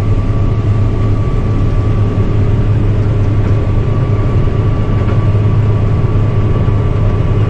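Combine harvester running while harvesting barley: a steady, loud low drone of engine and threshing machinery with a faint steady whine above it, heard from inside the cab.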